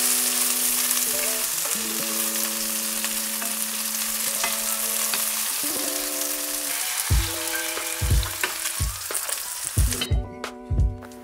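Chicken pieces and red onion sizzling in hot oil and sauce in an enamelled cast-iron pot, stirred with a wooden spatula. The sizzle cuts off sharply near the end. Background music plays underneath, with a thumping beat coming in about seven seconds in.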